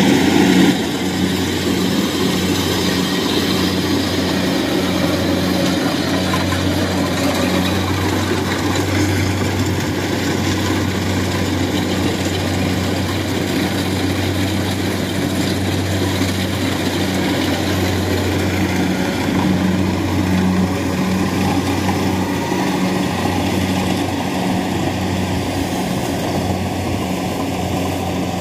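Rice combine harvester's engine running steadily as the machine cuts and threshes rice close by. The level dips slightly about a second in, then holds steady.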